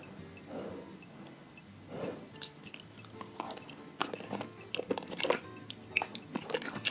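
Close-miked eating sounds of creamy pasta: two soft wet mouth noises in the first half, then rapid wet chewing clicks from about four seconds in.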